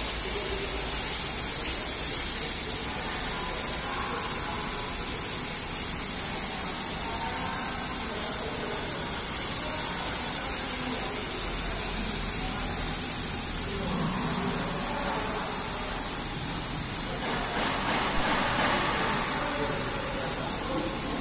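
A 260 W CO2 laser cutting machine running while it cuts 20 mm MDF: a steady, unbroken hiss of air at the cutting head.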